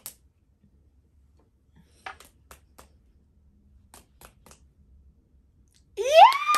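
Soft taps of fists on open palms, two quick rounds of three beats each, from a silent game of rock-paper-scissors. Near the end, a woman's loud, high squeal that rises steeply, holds, then falls.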